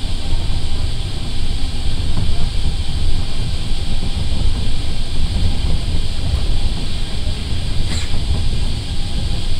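Interior running noise of an Osaka Monorail straddle-beam monorail car in motion: a steady low rumble from its rubber tyres on the concrete guideway, with a hiss above it.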